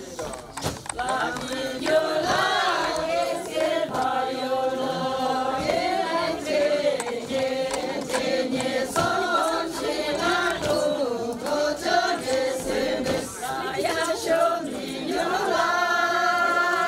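A group of voices singing together in a chant-like Sherpa shyabru song, with long held notes and gliding phrases.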